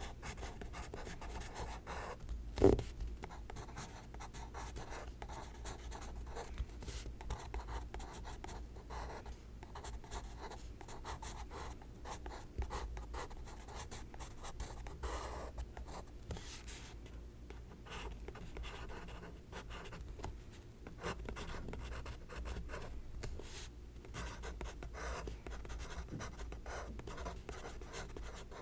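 Pencil writing on a sketchbook page: short scratching strokes with brief pauses between letters. One sharp knock about two and a half seconds in.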